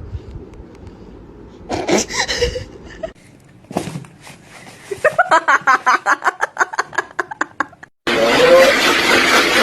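A person laughing in quick repeated bursts, followed by an abrupt switch to a loud, steady noise about eight seconds in.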